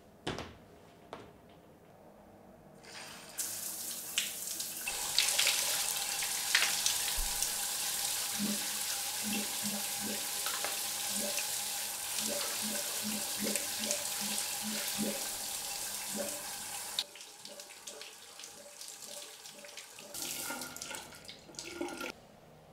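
Shower running: a steady hiss of water spray that starts a few seconds in and cuts off suddenly about 17 seconds in, followed by a few quiet handling sounds.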